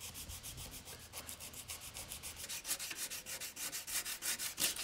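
Body filler on a car's scuttle panel being rubbed down by hand with folded sandpaper: quick, even back-and-forth scraping strokes, about eight a second.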